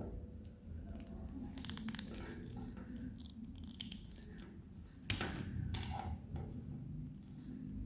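Faint handling noise as the outer jacket of a UTP network cable is stripped and worked by hand, with a few light clicks about two seconds in and one sharp click about five seconds in.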